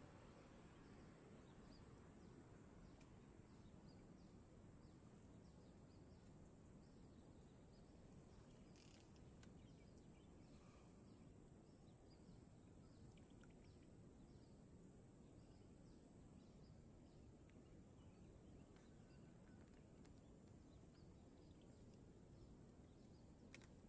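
Near silence: faint swamp ambience with a steady thin high-pitched drone and faint, evenly spaced chirps, of the kind insects make.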